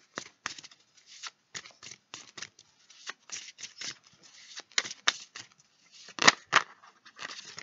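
A deck of tarot cards being hand-shuffled: irregular quick papery flicks and riffles of the cards, with two louder snaps a little after six seconds in.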